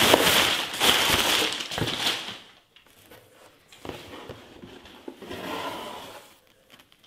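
Brown kraft packing paper crumpling and rustling as it is pulled out of a cardboard box, loud for the first two seconds, then fading to quieter handling of the box.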